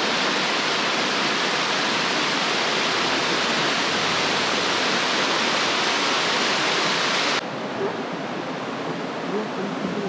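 Steady rushing of a shallow mountain river flowing over rocks and rapids below a small weir, loud and even. About seven seconds in it falls abruptly to a quieter rush.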